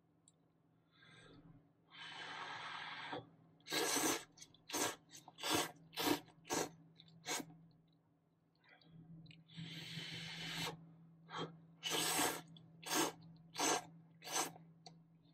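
Ramen noodles being slurped from chopsticks, in two rounds: each a longer airy draw of breath followed by a run of short, sharp slurps, about six or seven each time.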